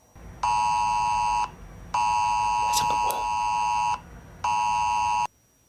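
Emergency alert attention signal: a steady two-tone beep, the 853 and 960 Hz pair used by the Emergency Alert System and wireless emergency alerts. It sounds in three bursts of about one second, two seconds and just under a second, with half-second gaps.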